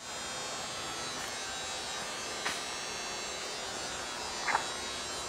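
A steady buzzing hum made of many fine tones, with two brief high blips, the louder one about four and a half seconds in.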